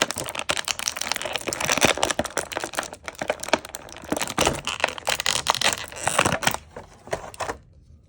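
Action-figure packaging being opened by hand: a rapid, irregular run of plastic and cardboard crackling, clicking and tearing that stops about seven and a half seconds in.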